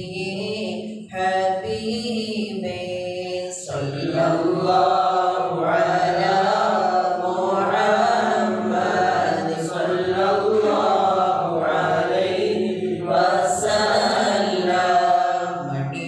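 A group of men chanting Mawlid, Arabic devotional verse in praise of the Prophet, in a sustained melodic recitation. The chant grows fuller and louder about four seconds in.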